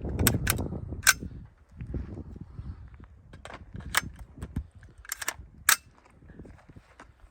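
Suppressed .22LR rifle, an AR with a .22 conversion kit, firing an uneven string of shots, each a sharp short crack. Wind rumbles on the microphone in the first couple of seconds.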